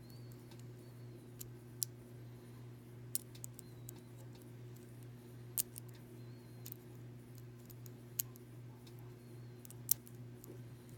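Lock pick and tension wrench working the pins of an Ace A527 hardened steel round-body padlock: scattered small, sharp clicks at irregular intervals over a steady low hum. The many little clicks are what the picker takes for serrated pins.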